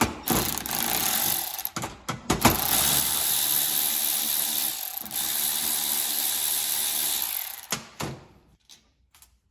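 A handheld power tool runs steadily for about seven seconds, with a few sharp clicks in the first couple of seconds, as it spins fittings off a universal starter solenoid's terminals. A few faint clicks of handling follow after it stops.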